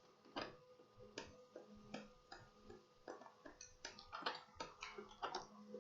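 Faint, irregular clicking and ticking from a laser printer mechanism running a print, over a faint steady hum.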